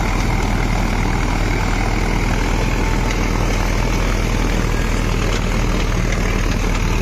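Sonalika Tiger DI 55 tractor's diesel engine running steadily under heavy load, mixed with the running of the straw reaper it drives. The tractor is slightly overloaded.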